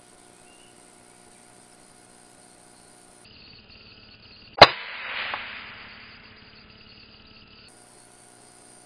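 A single sharp rifle shot about halfway through, followed by a fading hiss lasting about a second and a half and a faint second click.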